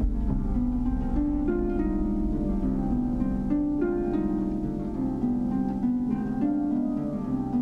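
Harp music: a quick, unbroken line of plucked notes, several a second, stepping up and down in pitch over a low sustained rumble.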